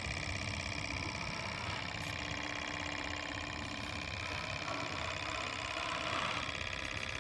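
Small model Stirling hot-air engine, a Wiggers Stiwi 2, running steadily with a fast, even mechanical ticking from its flywheel, crank and linkages.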